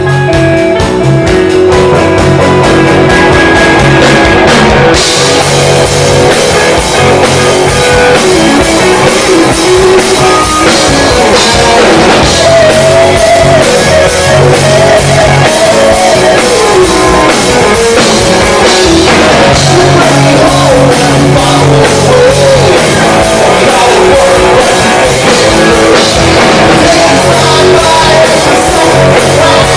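Rock band playing live: electric guitar, bass and drum kit. A sparser guitar passage opens, the full band with crashing cymbals comes in about five seconds in, and a lead line that bends in pitch runs over it.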